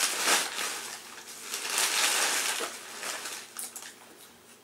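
Gift wrapping paper and packaging crinkling and rustling in several bursts as a present is unwrapped, dying away near the end.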